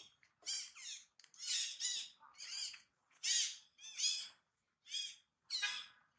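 A young long-tailed macaque crying: a rapid series of short, high, wavering calls, about ten in all.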